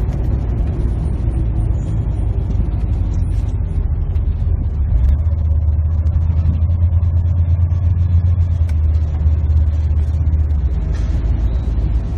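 Engine and road noise heard from inside a moving vehicle's cab: a steady low drone that grows stronger about five seconds in and eases off near the end.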